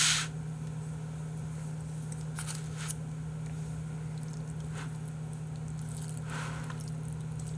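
A steady low hum, with a few faint, brief clicks and rustles of chopsticks working in plastic food containers.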